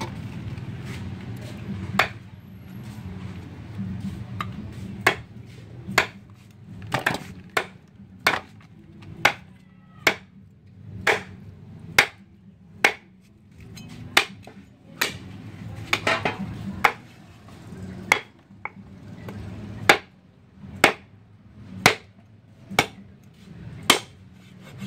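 Knife chopping on a cutting board: sharp single strokes about once a second, some in quick pairs, over a low steady rumble.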